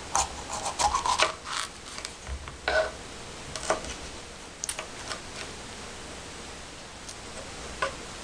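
Kitchen knife dicing a red bell pepper and tomatoes on a wooden butcher-block board: irregular knocks of the blade on the wood, thick in the first five seconds, then only a few.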